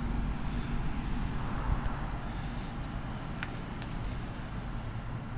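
Steady low rumble of road traffic and vehicles running at the roadside, with a single sharp click about three and a half seconds in.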